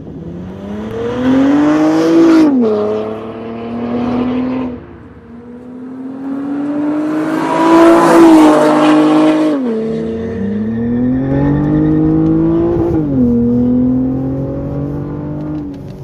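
2009 Acura TL V6, run through a test pipe and a muffler delete, accelerating hard three times: its pitch climbs and drops suddenly at each gear change. The loudest point is the car passing close by about halfway through.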